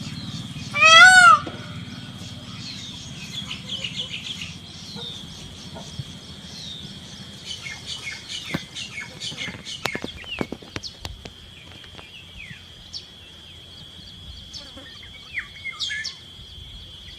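A peacock gives one loud call about a second in. Afterwards small birds chirp over a steady high-pitched tone.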